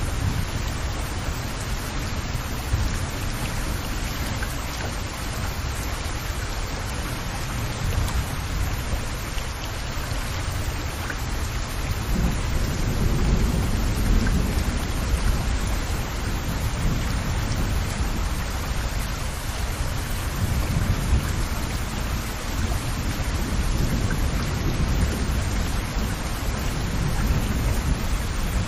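Rain falling steadily onto standing water, dense drops splashing on the flooded surface, with a low rumble underneath that swells now and then.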